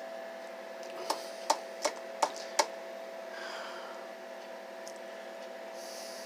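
Five short, sharp clicks about a third of a second apart, over a steady low hum.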